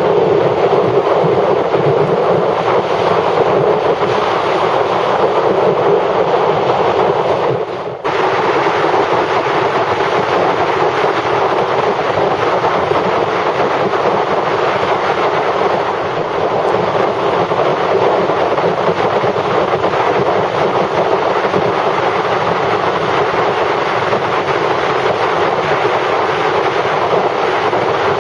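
Steady wind rush and road noise from a motorcycle travelling at highway speed, with a brief drop in level about eight seconds in.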